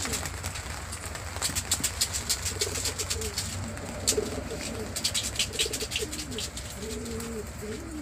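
Racing pigeons cooing: a run of short coos, each rising and falling in pitch, repeating through the second half.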